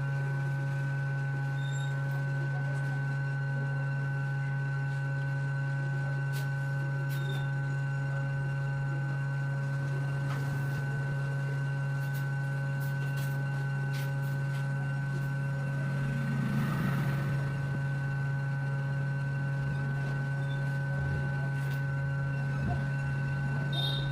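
Steady electrical hum from workbench equipment, with a few faint clicks of small tools on the bench.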